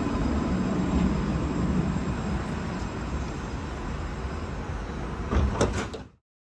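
Tram running, a steady low rumble with a few sharp clicks about five and a half seconds in, then the sound cuts off abruptly.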